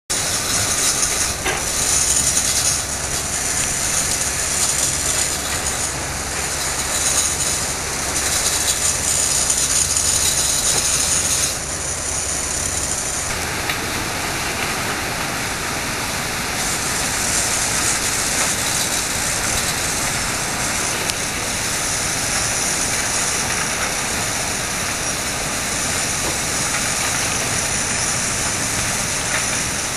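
Dredger rainbowing: a jet of sand-and-water slurry arcing from the bow nozzle and crashing down onto the water, a steady rushing hiss. A low steady drone from the dredger's pumping machinery runs under it for about the first dozen seconds.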